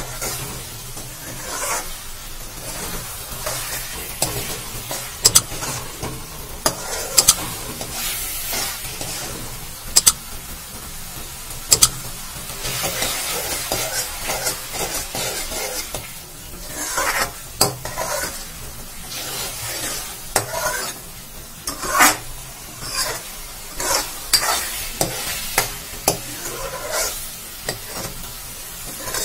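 A spoon stirring and scraping a thick, wet pumpkin-and-sugar mash in a metal kadhai as it cooks, with a steady sizzle and irregular sharp clicks of the spoon against the pan. The sugar has just melted and let out its water into the mixture.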